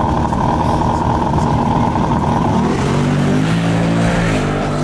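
Ford Mustang drag car launching from the start line at full throttle and accelerating away down the strip. The engine is loud throughout, and its note changes about three seconds in as the car pulls away.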